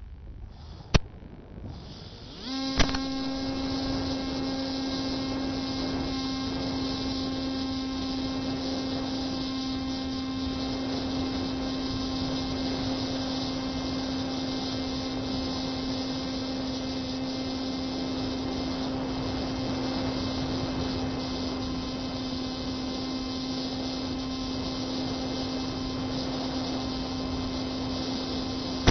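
Two sharp clicks, then a steady hum with hiss that starts about two and a half seconds in and holds at one unchanging pitch.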